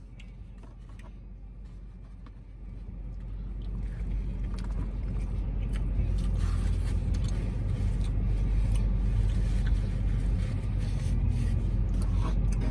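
Low, steady rumble of a motor vehicle's engine. It grows louder over the first few seconds and then holds.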